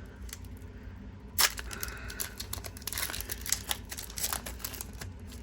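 Foil Pokémon card booster pack being torn open: a sharp rip about a second and a half in, then a run of crinkling and small clicks as the wrapper and cards are handled.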